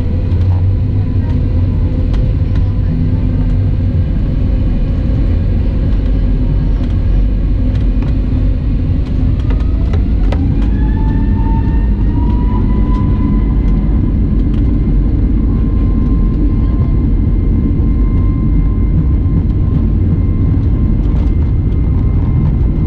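Cabin sound of an Airbus A320neo with CFM LEAP-1A engines as thrust is brought up for takeoff: a loud steady rumble, with an engine whine that rises in pitch about ten seconds in and then holds at a higher steady tone as the takeoff roll begins.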